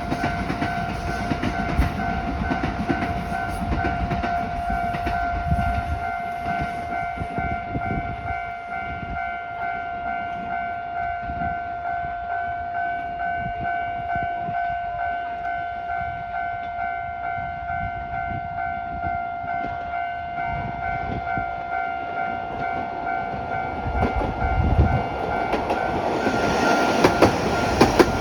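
Railway level crossing warning alarm ringing steadily while trains run over the crossing. Heavy rumble early on fades, and wheel clatter builds and grows louder in the last few seconds as another train approaches.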